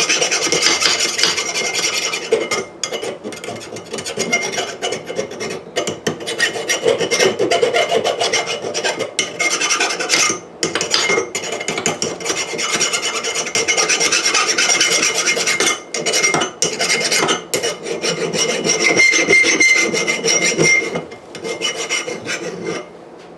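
Power grinder grinding the edges of a steel anvil: a continuous grating, with a steady high motor whine and several short dips in level.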